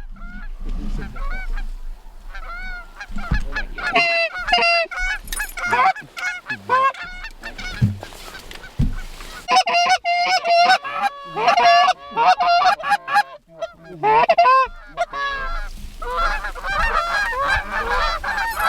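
Canada geese honking and clucking, many calls overlapping, coming in thick clusters about halfway through and again near the end.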